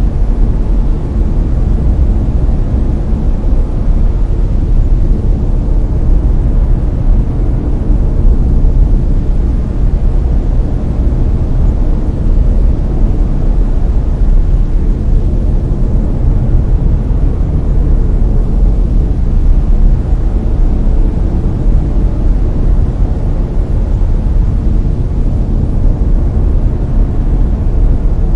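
Layered brown noise: a steady, deep rumbling hiss, loudest in the low end and fading toward the highs, with no change throughout.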